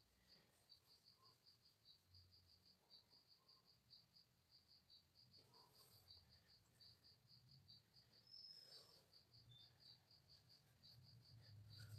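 A cricket chirping in a steady rhythm, about five short high chirps a second, faint against near silence, with a couple of faint rustles about halfway through.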